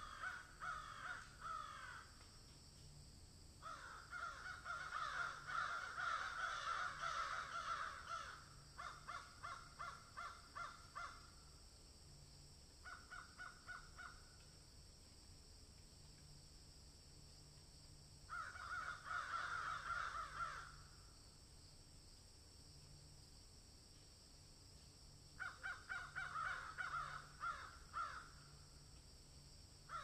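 Harsh animal calls come in rapid runs of a few seconds each, about six runs in all, the longest and loudest about four to eight seconds in. A steady high hiss runs underneath.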